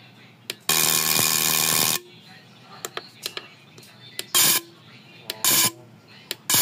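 Fuel injectors on an injector test bench: a steady buzz as an injector is pulsed for over a second, then several short hissing bursts of about a third of a second each, with light clicks between, as the injectors are checked for spray and leaks.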